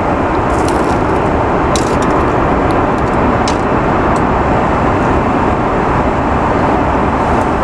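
Steady airliner cabin noise in flight: a loud, even rush of engines and airflow. A few short crinkles or clicks of food wrapping being handled sound over it.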